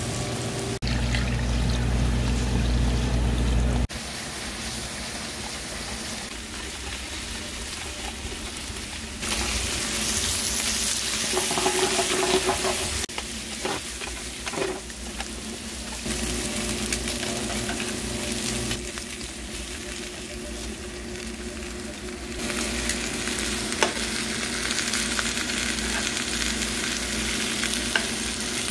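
Marinated LA galbi beef short ribs sizzling as they fry in a hot pan, a steady crackling hiss. The level and tone shift abruptly between cut-together shots, and a couple of sharp clicks come near the end.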